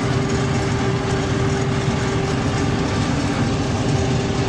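Farm machine's engine running steadily under load as it drives through and cuts down dry crop stalks: a constant low hum with a steady whine over it.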